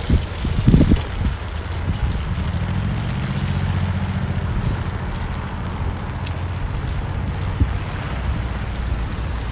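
Wind rumbling on the microphone, with louder gusts just under a second in, over the low running of a motorcycle engine as the bike rides away along a wet road.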